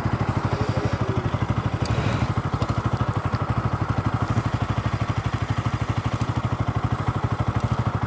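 Motorcycle engine idling with a steady, fast, even beat.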